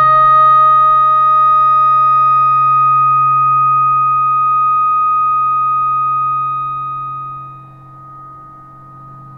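Electric guitar note held through an amplifier with long sustain, steady pitch and slowly fading, dying away about three-quarters of the way through and leaving a faint low hum.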